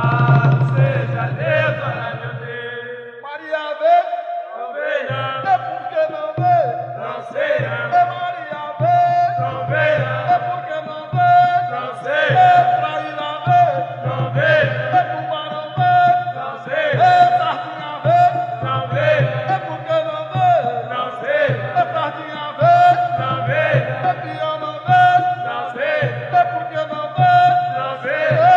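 Capoeira song: a voice chanting a melody over a low, regularly pulsing accompaniment that drops out for about two seconds near the start.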